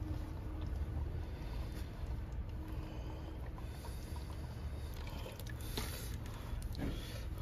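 Water poured from a glass bottle onto a cloth hand towel, trickling and dripping, with a few drips and splashes near the end, over a steady low hum.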